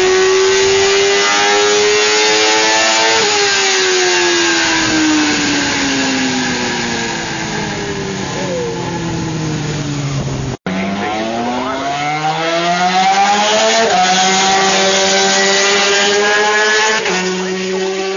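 Racing motorcycle engines at high revs. The pitch climbs, then falls slowly away over several seconds. After a sudden break about ten seconds in, an engine climbs through the revs again, holds high and drops a step near the end.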